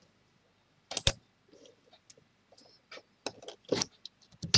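Sparse computer mouse and keyboard clicks, with a sharp double click about a second in and a run of lighter clicks in the last couple of seconds.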